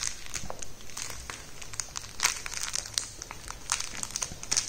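A rattling plush toy being bitten, clutched and kicked by a kitten: irregular crinkly rattling rustles, with short louder bursts about two seconds in and again near the end.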